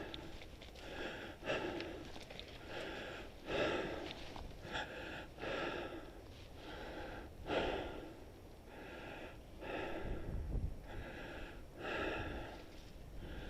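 A person breathing hard in quick, even puffs, about one every three-quarters of a second.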